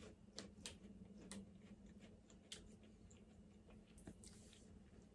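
Faint, scattered crisp clicks and crunches of small hazelnut-cream wafers being bitten and chewed, about half a dozen in all, over near silence.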